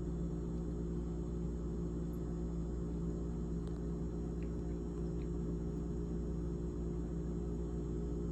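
GE GTH18XCTZRBB refrigerator running with a steady hum made of several fixed low tones, with a few faint ticks in the middle.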